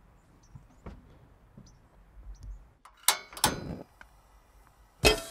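Gas stove burner being lit: two sharp clicks about three seconds in, then a brief rush as the flame catches. A heavy thump follows near the end.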